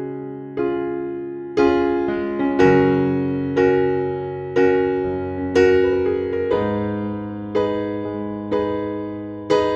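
Background music: slow electric piano chords, struck about once a second, each ringing out and fading before the next.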